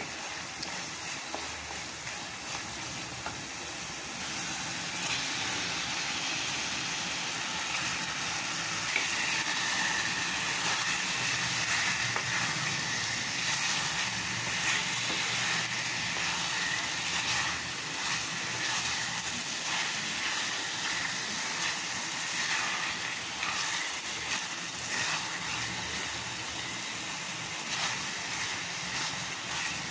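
Masala sizzling and hissing in an aluminium pot as it is stirred. The sizzle grows louder a few seconds in, as raw chicken pieces go into the hot masala and are stirred through it.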